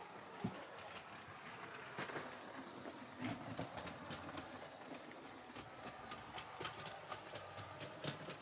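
LEGO tram driven by a Powered Up motor, running on plastic LEGO track: a faint motor hum with irregular light clicks of the wheels over the track.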